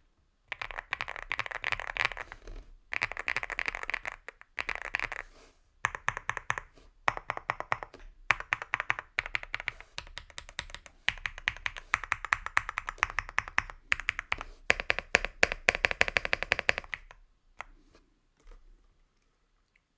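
Fast typing on a Leobog Hi75 mechanical keyboard with Gateron Smoothie Silver linear switches: runs of quick key clacks broken by short pauses. The typing stops about three-quarters of the way through, leaving a few last scattered taps.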